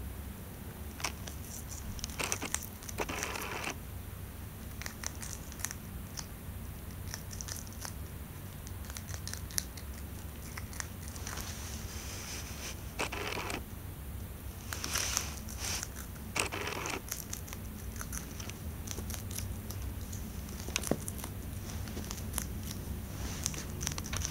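Hamster nibbling and crunching a piece of yellow bell pepper: scattered small crisp clicks and short crunchy bursts over a steady low background hum.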